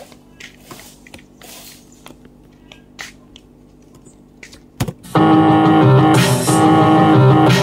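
Sound-system speaker stack coming on: a sharp pop about five seconds in, then loud music with a keyboard melody over heavy bass. Before it starts, only low background with a few light taps.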